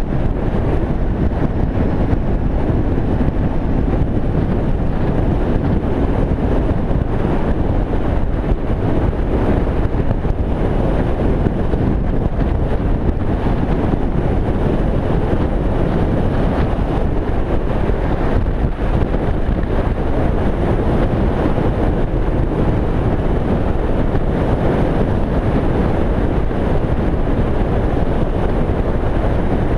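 Steady wind rush on the microphone of a helmet-mounted camera while riding a Kymco Venox 250 cruiser motorcycle at road speed, its V-twin engine running under the noise.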